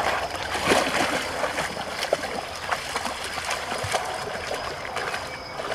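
Shallow muddy water sloshing and splashing as two dogs wade through a stream, small irregular splashes over a steady running-water hiss.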